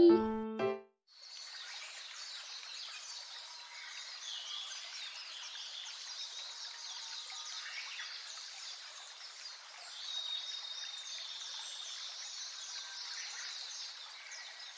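A voice and a short musical note cut off in the first second. Then comes a nature ambience of many small birds chirping over a steady outdoor hiss like a stream, swelling slightly about ten seconds in.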